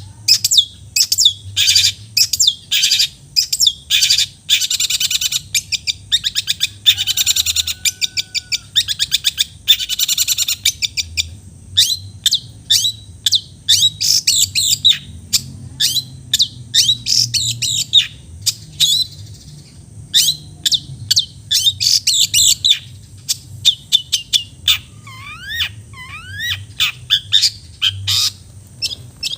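A long-tailed shrike (cendet) sings a fast, varied song of sharp chirps and harsh, scratchy chatter, with dense runs in the first ten seconds. It is in full song ('gacor'), mixing in mimicked phrases. A few sweeping whistles come near the end.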